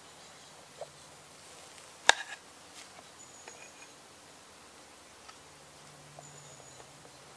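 A metal knife knocking once, sharply, on the flat cooking stone about two seconds in, followed by a few light ticks.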